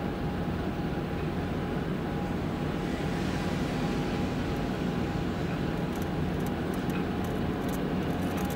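Steady low machinery hum from a coast guard patrol vessel heaving up its anchor, with a thin steady whine over it. A run of faint clicks comes in over the last few seconds.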